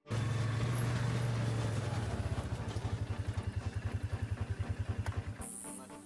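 Heavy-equipment engine running, a steady low hum that after about two seconds turns into an even pulsing of about ten beats a second, then stops abruptly near the end.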